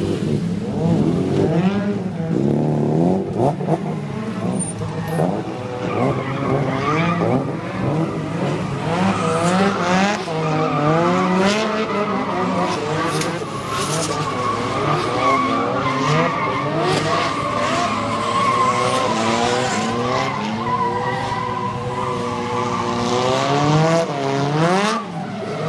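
Drift cars sliding with engines at high revs, the pitch of several engines rising and falling over each other, and tyres squealing and skidding. About 24 seconds in one engine revs up sharply, then dips briefly.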